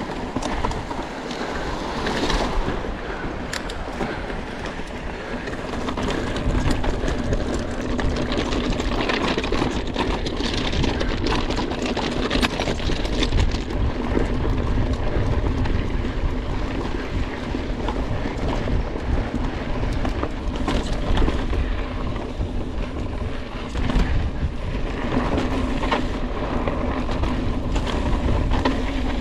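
Mountain bike ridden fast down a rough trail: wind buffets the on-bike microphone while the tyres and bike rattle and clatter over the ground, with a steady low hum throughout.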